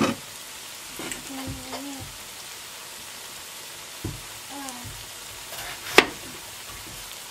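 Potato pancakes frying in shallow oil in a pan, a steady sizzle. Over it, a knife cutting an apple taps on a wooden chopping board: a sharp tap at the start and a louder one about six seconds in.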